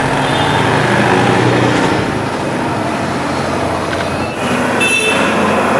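City street traffic: vehicle engines and road noise from passing buses and auto-rickshaws, steady throughout, with a brief high-pitched tone a little under five seconds in.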